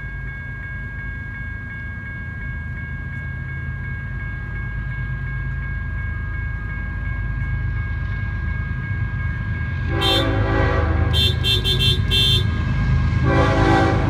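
Union Pacific coal train approaching a grade crossing: a low rumble growing louder under the steady ring of the crossing bell. In the last four seconds come horn blasts: a long one, a quick run of short honks, then another long one.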